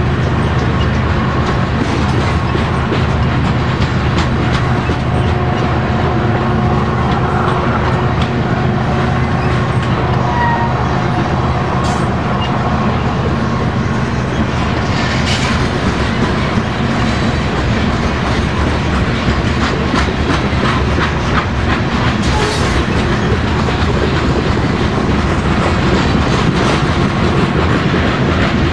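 Canadian National train rolling past at a steady level, its wheels clicking rapidly over the rail joints. A few sharper knocks stand out partway through.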